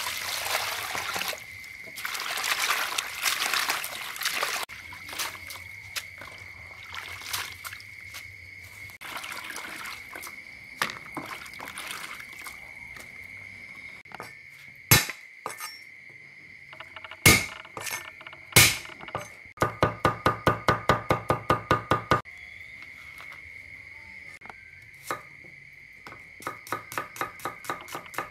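Water poured from a jug splashing onto herb leaves in a plastic basin for the first few seconds. Later come a few single loud knocks, then a cleaver chopping fast on a wooden cutting board at about six strokes a second, in two runs, the last on shallots. A faint steady high-pitched tone sits underneath throughout.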